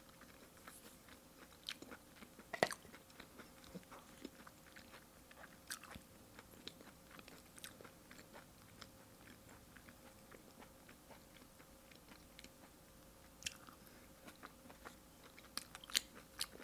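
Close-miked chewing of a bite of sushi loaded with tako wasabi (chopped raw octopus): quiet wet mouth clicks and smacks scattered through, a few sharper ones near the end.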